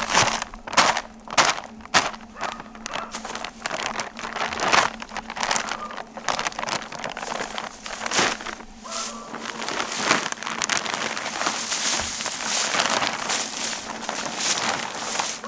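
A compost sack being torn open by hand without a knife and handled, with a string of sharp cracks over the first few seconds giving way to steady rustling. Dry fallen leaves crunch underfoot.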